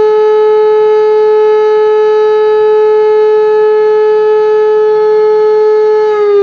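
E57 electromechanical civil-defense siren sounding a loud, steady tone during a test alarm. Just before the end its pitch starts to fall as the rotor winds down.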